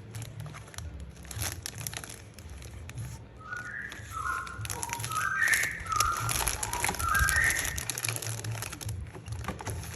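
Plastic packaging and small toy pieces crinkling and clicking as they are handled. In the middle comes a run of short, high, whistle-like notes that step up and down.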